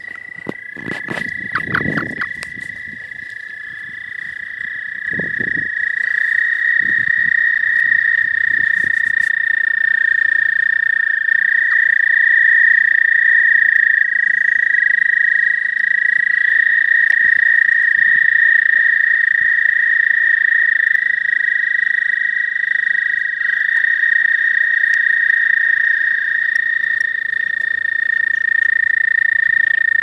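Several male toads trilling together in a spring breeding chorus: long, steady, high trills overlapping at slightly different pitches, one caller taking over as another stops. The chorus swells over the first few seconds and then holds. A few low bumps come in the first several seconds.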